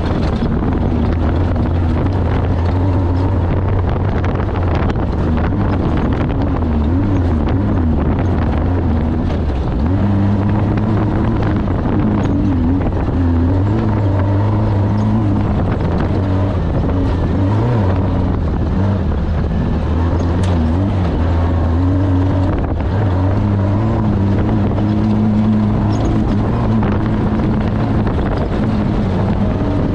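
Off-road race vehicle's engine running hard and continuously, its pitch wavering up and down as the throttle changes over rough terrain.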